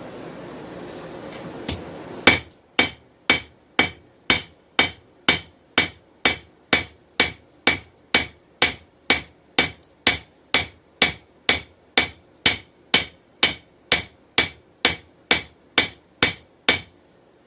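Steady, even hammer blows on hot 416 stainless steel over an anvil, about two a second, each with a short metallic ring, as the knife blade is drawn out and thinned. The blows start about two seconds in and stop shortly before the end.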